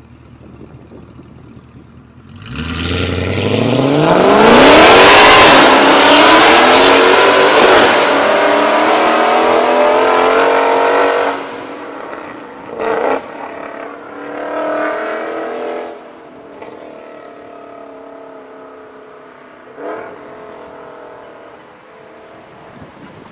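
Mercedes-AMG C63 (W204) V8 through a catless Fi valvetronic exhaust, idling and then revving hard as the car launches away about two seconds in: a very loud exhaust note climbing steeply in pitch and staying loud for several seconds. It drops off suddenly and fades into the distance, with two short sharp bursts of sound later on.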